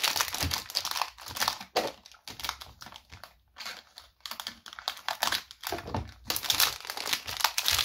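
Clear plastic shrink wrap crinkling and rustling as it is cut with scissors and pulled off a new 6x6 speedcube, with a lull about three to four seconds in.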